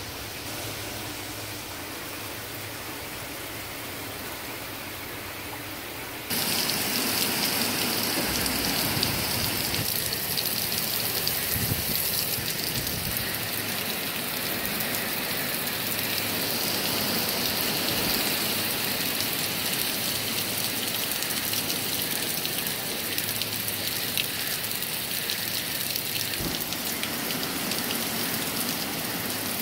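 Hurricane rain and wind hissing steadily through trees. About six seconds in, the sound jumps suddenly louder and stays there.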